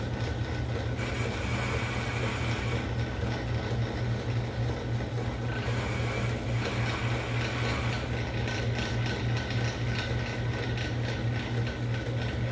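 Lathe running with a steady motor hum while the cutting tool carves the harmonica's slide button, a higher tone from the cut coming and going.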